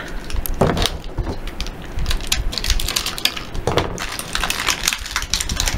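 Plastic blister packaging for small toy figures being handled and opened: irregular crinkles and sharp clicks, with a few louder clicks scattered through.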